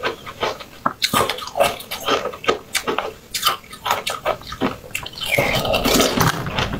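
Close-up wet mouth sounds of someone biting and sucking a soft jelly ball: a quick run of sharp wet clicks and smacks, with a longer slurp near the end.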